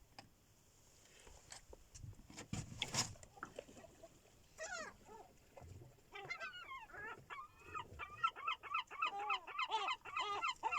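Gulls calling, a rapid run of repeated cries that starts about four seconds in and grows busier, with several birds overlapping. A few knocks and clatters come before the calls.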